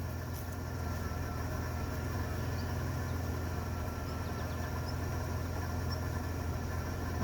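1998 Dodge Grand Caravan engine running steadily at low revs while the owner tries to move the van on its failing transmission. A single sharp knock comes right at the very end.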